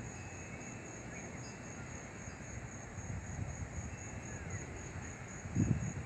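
Insects trilling: a steady, evenly pulsing high-pitched trill over a low rumble, with one dull low bump about five and a half seconds in.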